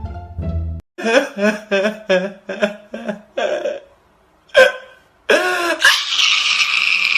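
A person's voice in a run of about seven short, quick bursts, then a single burst, a longer cry and a steady hiss of noise near the end.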